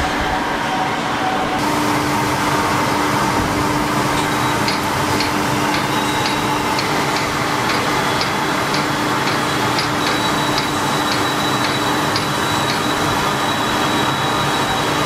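Steady machinery noise with a low hum, joined from about four seconds in by light, regular ticks about twice a second.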